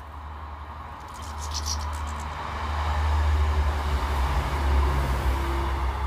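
Low rumble of a passing motor vehicle, building to its loudest about halfway through and easing off near the end.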